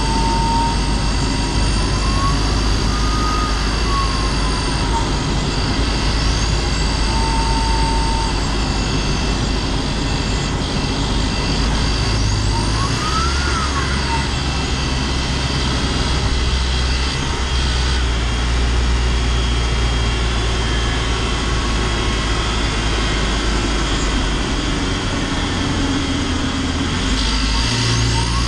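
LDV G10 van's turbocharged petrol engine under way, heard from inside the cab: a steady low drone with a whistle that rises and falls in pitch several times. The owner puts the annoying whistle down to the turbo. The engine's low note shifts twice.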